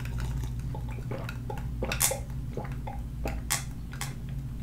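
A person drinking from a stemmed glass: swallows and small wet mouth clicks, with two sharper clicks about two and three and a half seconds in, over a steady low hum.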